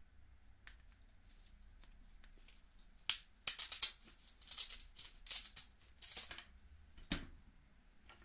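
Kitchen scissors snipping through the shell of a steamed snow crab leg: after a few quiet seconds, a run of about seven crisp, crackling cuts, the last a little before the end.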